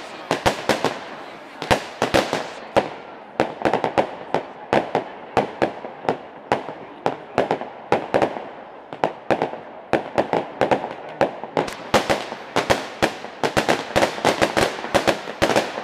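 Fireworks display: a rapid, irregular string of sharp bangs from aerial shells bursting overhead, coming thicker and faster in the last few seconds.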